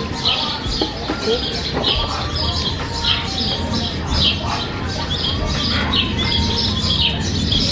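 Small birds chirping busily, many short high calls one after another, over a low steady rumble.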